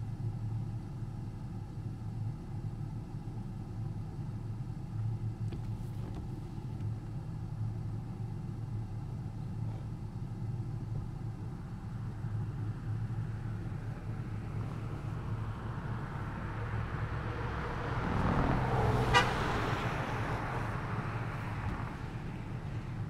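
A car's steady low road and engine rumble while driving. About two-thirds of the way in, a louder rush swells, peaks with a sharp click, then fades.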